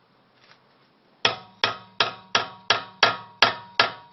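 Hammer blows on a metal tool, about eight evenly paced strikes at roughly three a second starting a little over a second in, each with a short metallic ring: knocking loose the Mercedes-style front hub lock nut with an improvised tool.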